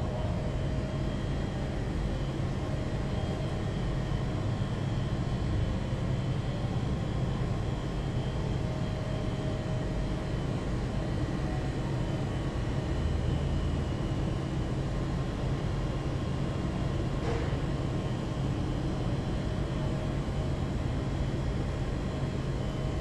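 Steady low hum of a commercial kitchen's ventilation running, even and unchanging, with one light click about three-quarters of the way through.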